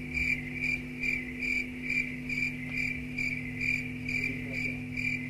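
A high-pitched chirp repeating steadily about three to four times a second, over a steady low hum.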